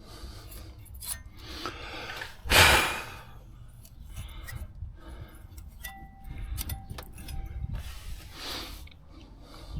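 Hand tools and brake parts being handled during a brake job: scattered light metallic clinks and rubbing, with one loud noisy scrape-like burst about two and a half seconds in.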